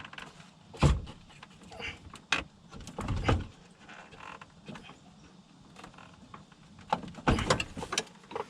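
Scattered knocks and rattles from the radiator and A/C condenser assembly being handled and pried at its plastic clips. There is a sharp knock about a second in, a rattling scrape around three seconds, and another cluster of knocks near the end.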